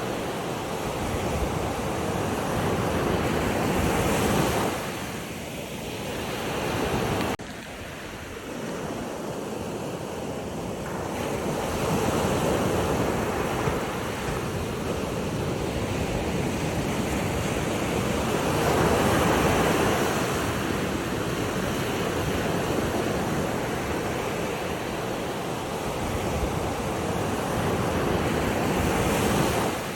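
Ocean surf: waves washing in, a steady rush that swells and eases every few seconds. The level drops suddenly about seven seconds in.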